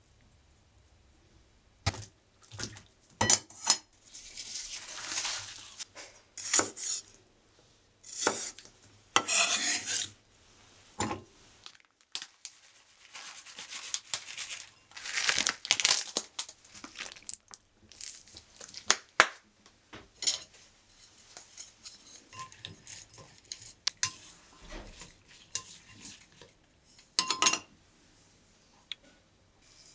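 Irregular kitchen prep sounds: dishes and utensils clinking and knocking against a glass bowl and a wooden cutting board, broken by several rustling bursts of a second or two.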